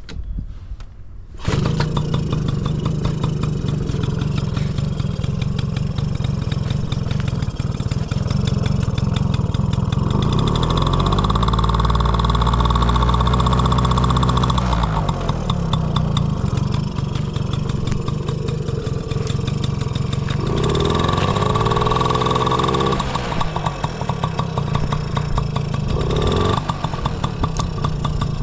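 Honda Motocompo AB12's small two-stroke single-cylinder engine catching and starting about a second and a half in, then idling and being revved up twice, with a short blip near the end. It revs up cleanly with no abnormal noises, a healthy-running engine.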